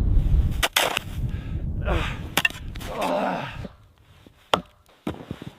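Strong wind buffeting the microphone, with a few sharp wooden knocks and cracks. The wind drops off about three and a half seconds in, leaving a couple of isolated knocks.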